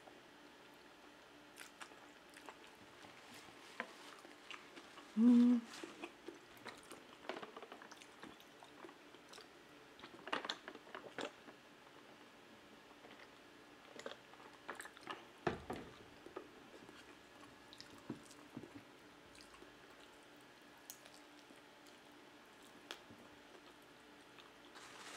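Close-miked eating sounds: chewing spaghetti with wet mouth clicks and smacks, a brief hummed "mm" about five seconds in, sips from a water bottle, and a single thump a little past halfway.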